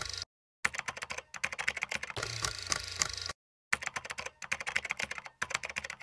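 Typing sound effect: rapid clicking of computer-keyboard keys in quick runs, broken by two short pauses.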